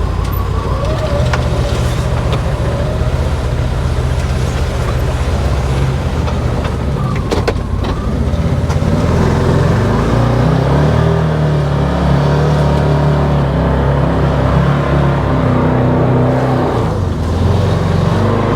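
Can-Am Defender side-by-side's engine running under load, pulling a loaded trailer up a soft, muddy hill; the engine note rises about eight or nine seconds in, with a single clunk just before.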